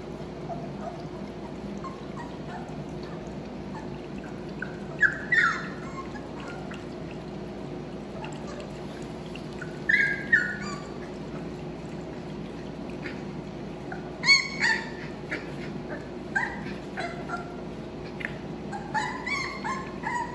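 Four-week-old Australian Labradoodle puppies whimpering and yipping in short, high squeaks: a few about 5, 10 and 14 seconds in, then more often near the end. A steady low hum runs underneath.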